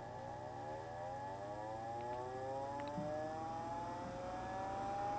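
Magnavox top-loading laserdisc player spinning up a disc: a whine made of several tones rising steadily in pitch, with a faint click or two partway through.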